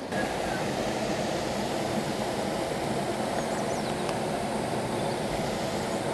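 Steady rushing of a fast, swollen river flowing past the bank in high water.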